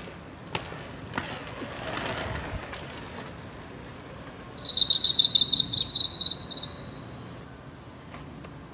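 A loud, high-pitched wavering squeal that lasts about two seconds, starting about halfway through, after a few light clicks.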